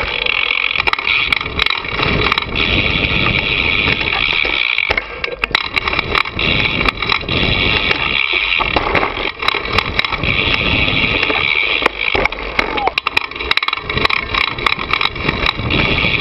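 Mountain bike riding a rough dirt trail, heard close up: wind rushing over the microphone with tyre noise and frequent rattling clicks and knocks from the bike over bumps. About five seconds in the steady high rush drops away and the knocks come thicker.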